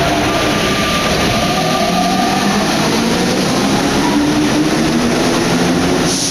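MP89 rubber-tyred Paris metro train moving along the platform, its electric traction equipment whining in several steady tones over a rolling hiss. The lower tones step up in pitch in the second half.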